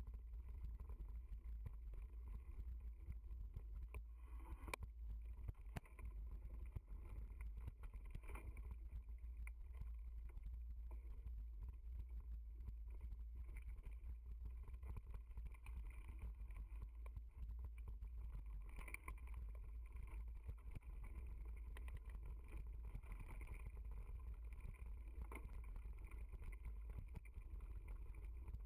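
Steady low rumble of wind and riding noise on a bike-mounted camera's microphone as a mountain bike rolls over a dirt trail, with scattered small knocks and rattles from the bumps.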